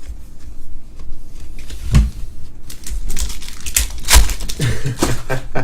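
Trading cards and foil pack wrappers being handled: irregular crinkling, rustling and light clicking, with a couple of dull thumps, about two seconds and four seconds in.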